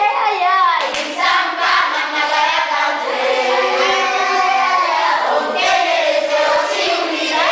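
A group of children and adults singing together as a choir, with some hand clapping.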